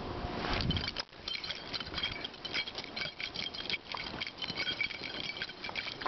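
Crunching footsteps in fresh deep snow, a quick run of crisp ticks, with a light metallic jingle mixed in.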